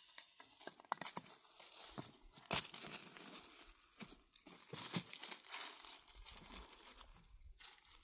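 Irregular rustling, crinkling and snapping of dry material being handled, with a few sharper cracks about one, two and a half and five seconds in.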